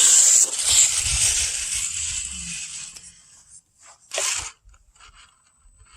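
Axial Capra RC crawler setting off across the ground, a crunching, scraping noise that fades over about three seconds, with one short burst of the same noise about four seconds in.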